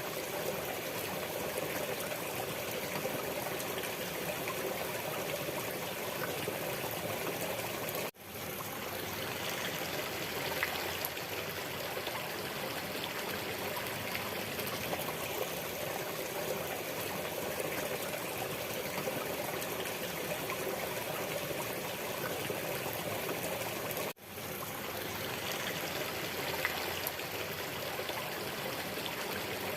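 Waterfall: a steady rush of falling and splashing water. Twice, about 8 and 24 seconds in, it cuts out for a split second and quickly fades back in.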